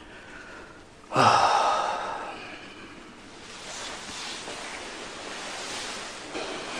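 A man's heavy sigh, starting suddenly about a second in and fading slowly, followed by softer breathy noise.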